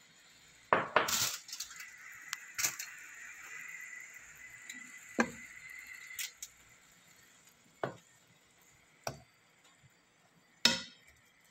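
Metal slotted turner clinking and knocking against a nonstick frying pan while turning chicken pieces: about seven separate clinks a second or two apart, over a faint frying sizzle that stops about six seconds in.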